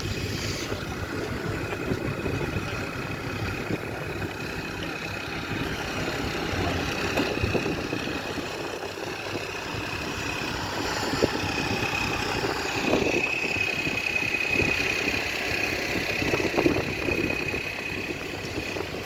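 An engine running steadily, with a thin, high, steady tone above it and scattered light knocks.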